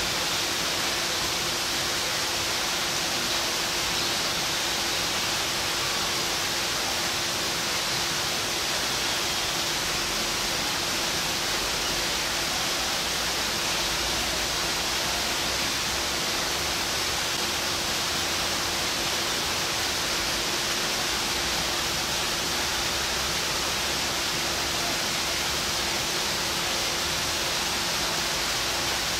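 A steady, even rushing hiss that does not change, with a faint steady hum underneath.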